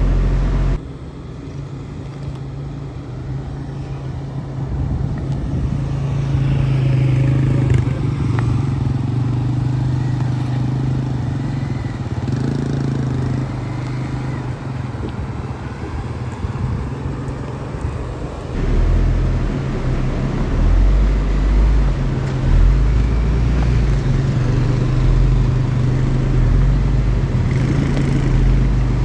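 GMC Canyon pickup truck driving off-road, its engine running with a steady low hum under rough road and tyre noise. Heavier low rumbling sets in about two-thirds of the way through.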